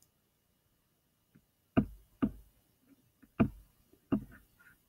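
Four sharp knocks or taps, unevenly spaced, each with a dull low thud, with a few fainter ticks between them.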